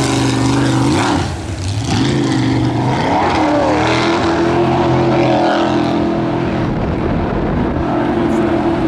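Racing jet boat's engine running hard, its pitch swinging up and down over the first few seconds, then holding steady at high revs.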